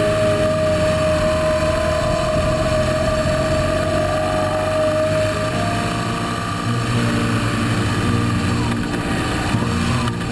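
BMW R1200GS Adventure boxer-twin motorcycle riding along at steady speed: engine running with tyre and road noise, heard from a camera mounted low by the front wheel.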